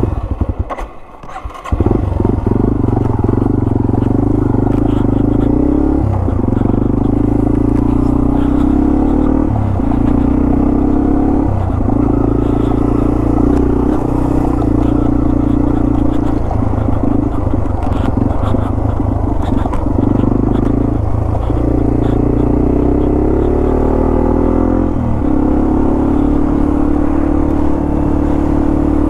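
Yamaha TW200's single-cylinder four-stroke engine, loud and steady from about two seconds in as the bike rides along. Its note dips briefly every few seconds.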